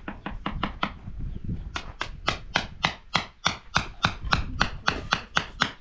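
Rapid, regular sharp taps, about three or four a second after a short pause near the start, as white pebbles are set one by one into wet cement.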